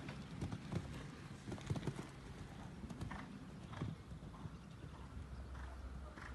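Hooves of a cantering horse on a sand arena footing: a run of dull, muffled thuds.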